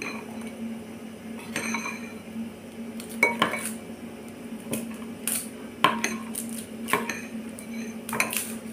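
Metal kitchen utensils clinking and knocking at irregular intervals, about half a dozen sharp clicks, over a steady low hum.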